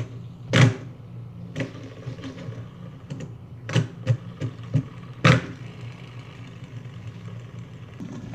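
Two light-up plastic fidget spinners pinned together, flicked by hand on a wooden tabletop: a string of sharp clicks and knocks over the first five seconds or so, over a steady low whir that carries on after the flicking stops.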